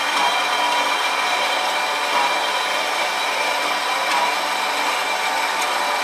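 Cheap bandsaw running steadily while cutting a notch in a metal bracket: a continuous hiss with a few steady high tones.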